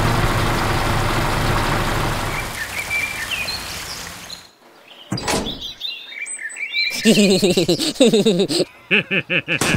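Background music fading out over the first four seconds. Then come birds chirping, a single click about five seconds in, and a louder stretch of lower-pitched wavering calls around the seventh and eighth seconds.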